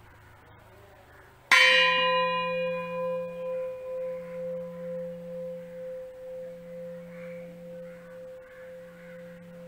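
An antique vellotturuli, a white-bronze Kerala cooking vessel, struck once with a piece of metal about a second and a half in, then ringing on long and sharp. The bright overtones die away within about two seconds, leaving a steady tone and a lower pulsing hum that fade slowly. This long-lasting resonance is the mark of genuine high-quality white bronze.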